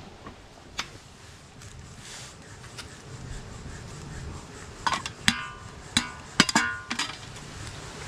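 Egg being cracked against the rim of a stainless steel pan: a quick run of sharp taps over about two seconds, several of them leaving the metal pan ringing briefly.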